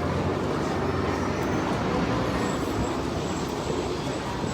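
Steady road traffic noise with a low engine rumble, like a bus or car running close by.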